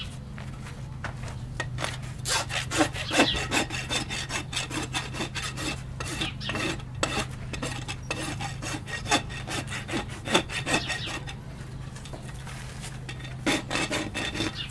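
Hoof rasp filing a horse's bare hoof during a trim: quick repeated scraping strokes, a short pause, then a few more strokes near the end.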